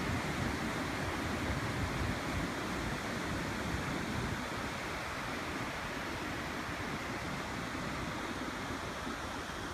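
Steady rush of river water pouring over a rocky riffle, with some low wind rumble on the phone's microphone.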